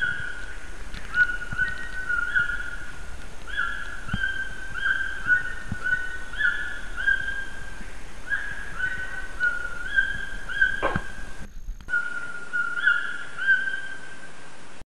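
A bird calling with a long run of short, clear whistled notes, about two a second, each a single tone rising slightly, with a brief break near the end. A few faint knocks sound under it.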